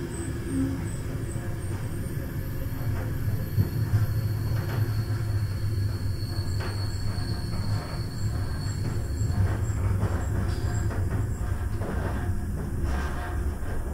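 A train running along the track with a steady low rumble, a faint high wheel squeal for a few seconds on the curve, and a few sharp clicks of wheels over the rails near the end.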